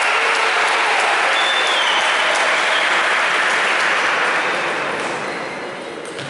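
Spectators applauding in a hall, dying away over the last second or two.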